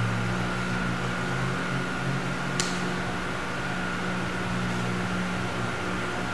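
Steady hum and whirr of a wall-mounted oscillating electric fan, with a thin steady high tone. A single sharp click sounds a little before halfway.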